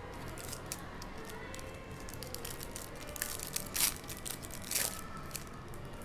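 A foil-wrapped Upper Deck WandaVision trading card pack being torn open by hand. The wrapper makes a run of sharp crackles, loudest about four seconds in and again near five seconds.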